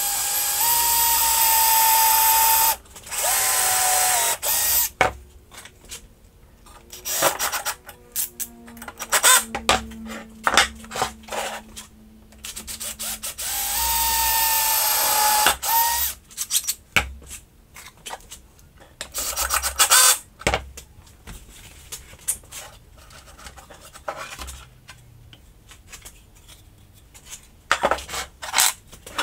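Metabo cordless drill-driver driving screws into plywood in three short runs, the longest about three seconds, its motor giving a steady whine. Sharp knocks and clicks of handling the wood and tools fall between the runs.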